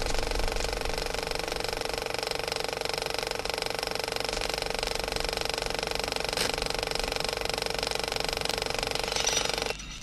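A steady, fast mechanical clatter over a set of held steady tones, cutting off abruptly near the end.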